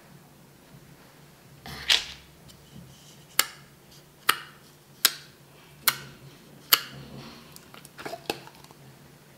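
Clear dish-soap water slime in a small plastic tub giving sharp, short pops, about one a second, as a finger pokes into it. About two seconds in, the tub's plastic lid coming off gives a broader crackle.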